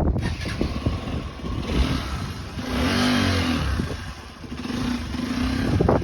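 Motorcycle engine revving up and easing off while riding a rough off-road track. Wind rushes over the microphone throughout.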